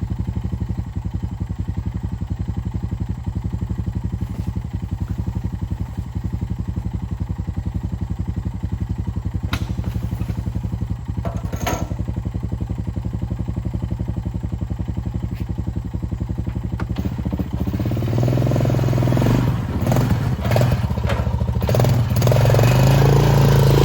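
Gasoline engine of a mini excavator running steadily with a fast, even beat. About 18 seconds in it gets louder and busier, with a couple of short clicks a few seconds before that.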